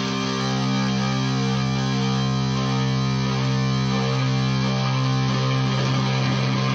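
Electric guitar played through a FuzzCo fuzz pedal: a fuzzed chord struck once and left ringing, sustaining steadily for several seconds.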